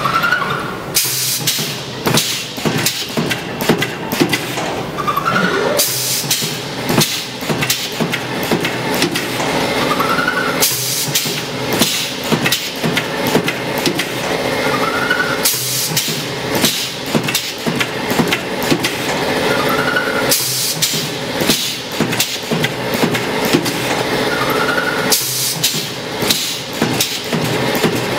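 Automatic spiral wire fan grill welding machine running through its sectional welding cycle: about every five seconds a short motor whine rises and falls as the grill indexes round, then a burst of hiss follows. A steady hum and sharp crackling clicks run under it.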